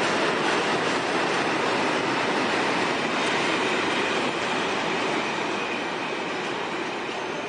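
Freight train wagons rolling past on the rails with a steady rumble and clatter of wheels. The noise eases from about four seconds in as the end of the train draws away.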